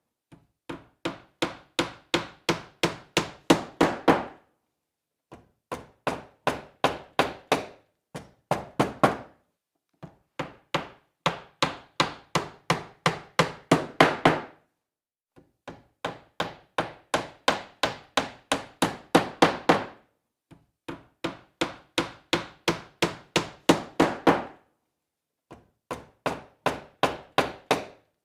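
Hammer driving a nail into wood: runs of quick blows, about three a second, each run lasting about four seconds with a short pause between, the blows growing louder through each run.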